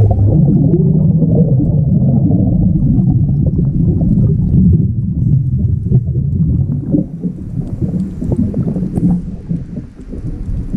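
Underwater bubbling and rushing water rumbling against the camera housing. It starts abruptly, runs steadily for about seven seconds, then eases into softer, patchier gurgles.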